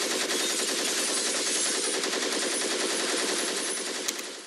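Rapid automatic gunfire, a continuous dense rattle of shots as in an action-film soundtrack, fading out near the end.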